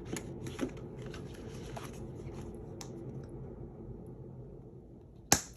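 Hands handling cash and paper budget envelopes: light rustling and small taps, fading out, then one sharp click near the end.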